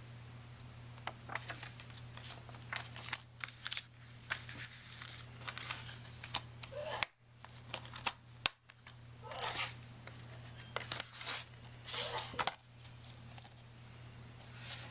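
Paper inserts, a plastic Blu-ray case and its cardboard slipcover being handled: a string of short rustles, scrapes and slides, with two sharp clicks about seven and eight and a half seconds in. A steady low hum runs underneath.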